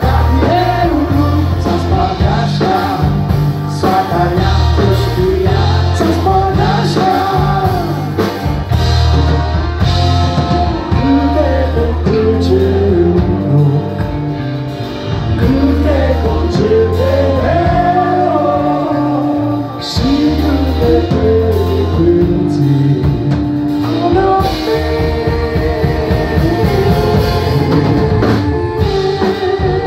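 Live rock band playing a song: a singer over electric guitar, bass guitar and a drum kit.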